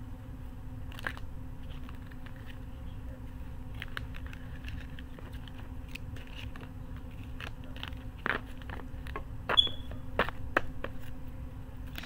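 Oracle cards being handled and sorted: light taps and rustles of card stock, with a few sharper clicks near the end, over a steady low hum.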